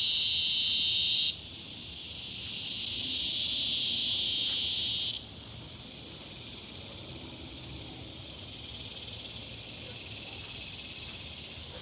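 Long, steady, high-pitched insect-like buzzing drones from the trees, coming in stretches: one cuts off about a second in, another runs from about three to five seconds, and a fainter, higher buzz comes near the end.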